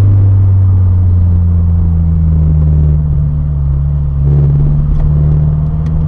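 A car's cabin drone from engine and road, picked up by the dash cam inside the car: a steady, loud low hum while the car slows.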